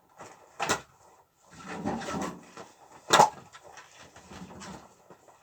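Split firewood logs knocking against each other as they are handled and stacked. There is a sharp wooden clack about a second in and a louder one about three seconds in, with lighter rustling and scraping of wood between them.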